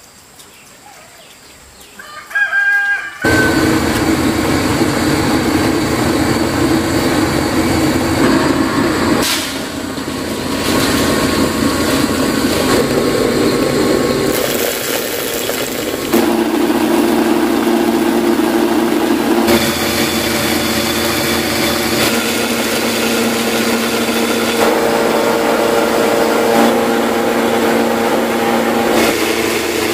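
A rooster crows briefly near the start. From about three seconds in, a machine's motor runs loudly and steadily, its hum changing abruptly several times.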